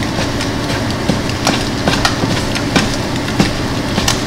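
Black slotted spatula chopping eggs in a frying pan, knocking against the pan in irregular sharp taps, over a steady hum.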